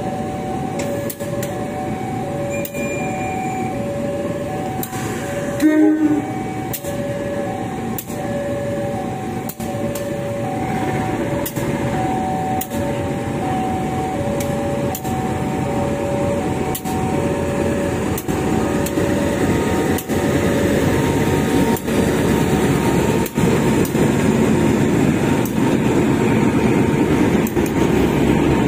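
Level-crossing warning alarm sounding in two alternating tones while a KAI CC 201 diesel-electric locomotive runs light past at walking pace. The alarm stops about two-thirds of the way through, and the locomotive's engine and wheels grow louder toward the end. There is one brief loud sound about six seconds in.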